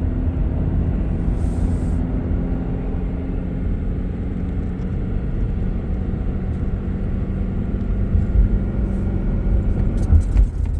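A car driving, its engine and tyres making a steady low rumble with a faint hum, and a few louder low bumps near the end.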